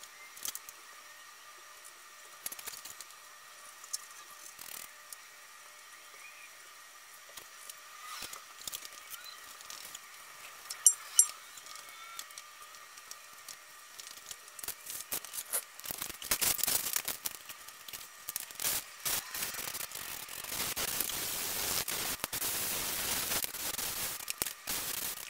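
Aerosol spray adhesive hissing from a spray can in long bursts through the second half. Earlier there are scattered light clicks, with one sharp clink about eleven seconds in, from small plastic trim clips being handled.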